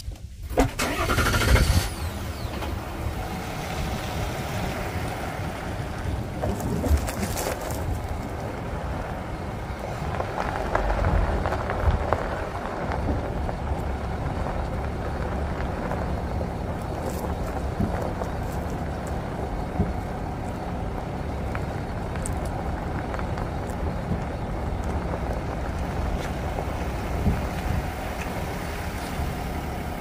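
A 2023 GMC Sierra Denali pickup rolling slowly over gravel, heard from beside a wheel: steady tyre and road rumble with a few short knocks now and then. The owner suspects the knocks come from the rear leaf springs, which have a gap between the leaves and may be shifting.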